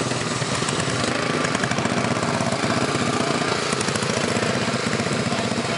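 Several racing lawn mower engines running together at idle, a steady mix of rapid small-engine firing.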